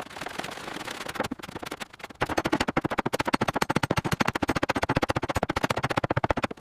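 A machine running with a rapid, even rattle of about a dozen pulses a second, starting about two seconds in after a quieter stretch of noise.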